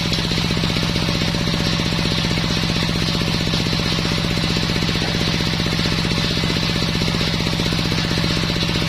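Engine driving a homemade circular sawmill, running steadily with a rapid, even pulsing beat and a constant low hum.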